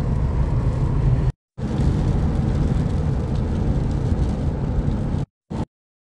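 Steady road noise inside a moving van, broken by a brief gap about a second in and cut off suddenly near the end.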